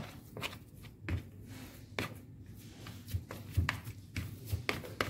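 Green plastic spatula scraping and tapping against a plastic basin as a crumbly fishing-bait dough is split into two portions: about a dozen irregular short scrapes and taps.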